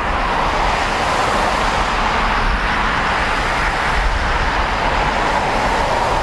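Jet airliner engines running with a steady, loud rushing roar.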